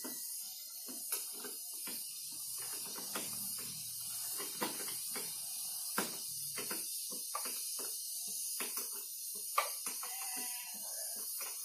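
Irregular clicks and metal clinks of hand tools as a mechanic works on a Yamaha F1ZR motorcycle, with a steady high hiss behind. The engine is not running.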